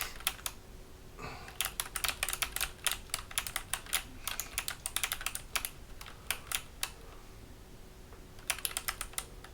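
Keys of a Hexgears Supernova mechanical keyboard being typed on by a small child: irregular clicking keystrokes in quick runs, with a pause about seven seconds in before a short final burst.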